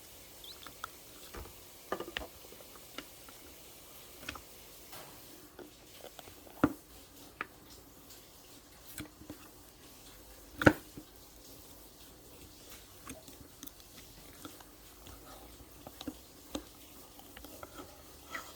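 Scattered small clicks and taps, with two louder sharp knocks, one about a third of the way in and a stronger one just past halfway.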